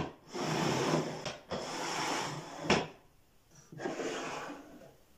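Solid-wood drawers of a small handmade roller-shutter box sliding in their wooden runners: wood rubbing on wood in three long strokes, with one sharp knock a little under three seconds in as a drawer bumps home. The upper drawer slides out near the end.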